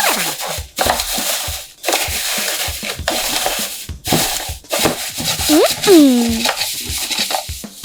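Paper crinkling and crushing in a run of short bursts as a handmade paper blind box is opened. A short tone that rises and then falls cuts in about five and a half seconds in.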